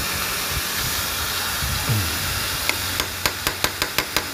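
Hammer tapping a large chisel against the slotted timing inspection cap on a Yamaha Scorpio engine's side cover, to loosen a tight cap: quick sharp metal taps, about five a second, starting a little past halfway. A steady hiss runs under it.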